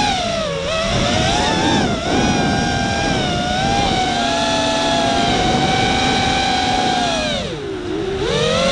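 Walkera F210 FPV quadcopter's brushless motors and three-blade 5-inch props whining in flight. Several close pitches beat against each other. The pitch dips about half a second in and again near the end as the throttle comes off, then climbs back.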